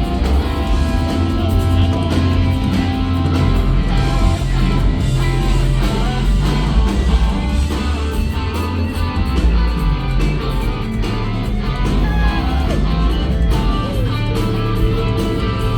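Live rock band playing, guitar lines over bass and drums, with a few bent, gliding notes in the second half.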